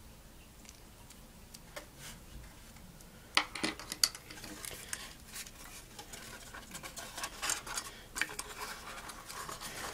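Light metallic clinks, taps and scratches of a sheet-metal drive mounting bracket and its cardboard packaging being handled. They start about three seconds in, after a nearly quiet start.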